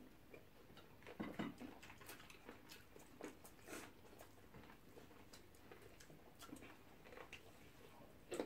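Faint chewing and soft mouth clicks of people eating fried plantain and egg, with scattered small ticks throughout.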